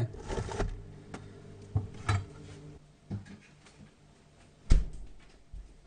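Knocks and clicks of containers being moved about inside a fridge, with one louder thump about three-quarters of the way in. A low steady hum underneath fades out about halfway through.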